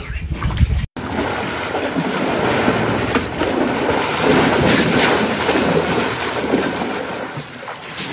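After a brief drop-out about a second in, water splashing and sloshing as elephants wade through a shallow waterhole, mixed with wind buffeting the microphone.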